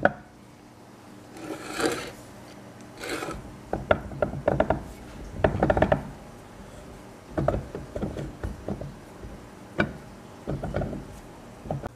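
Rotor and end bell of a Dumore grinder motor being worked back into the motor housing by hand: irregular metal-on-metal scraping, rubbing and clinks, in scattered bursts.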